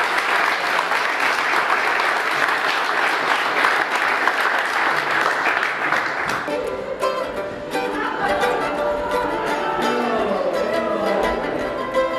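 Audience applauding at the end of a speech. About halfway through, the applause gives way to plucked-string music with guitar or banjo-like picking.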